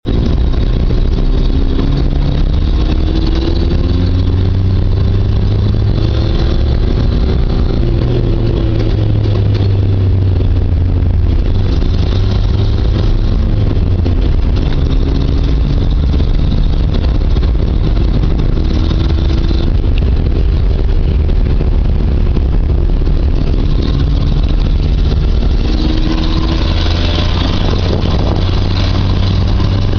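1981 Toyota Tercel's exhaust with a heavy, low drone while driving. The engine note climbs in pitch and drops back several times as the car accelerates and shifts.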